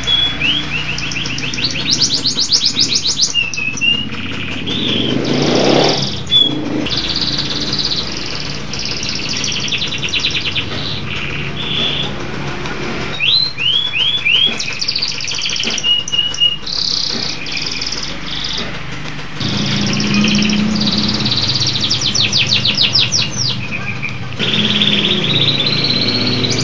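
Domestic canary singing continuously: a long song of rapid trills and fast chirp series, with a few held whistled notes between them.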